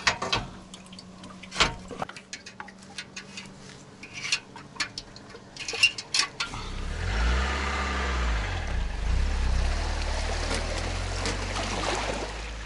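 Metal clicks and knocks of a galvanized boat-trailer clamp being worked by hand. About seven seconds in, a steady low rumble with a wash of water noise takes over.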